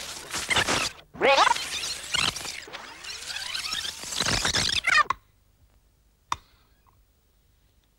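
Magnetic film sound dubbers rewinding at high speed, the recorded soundtrack garbled into a screeching chatter with sliding pitches in a few spurts, cutting off after about five seconds. A single sharp click follows about a second later.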